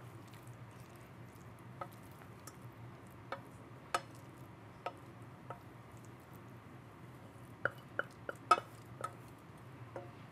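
Wooden spoon scraping and knocking against a stainless steel saucepan while pasta is spooned out into a ceramic bowl: scattered soft clicks and knocks, busiest near the end, over a faint low hum.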